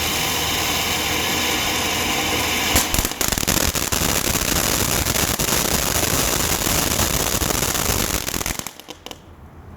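A 13-inch conic fountain firework spraying with a steady hiss, then from about three seconds in crackling with rapid small pops, dying away near the end.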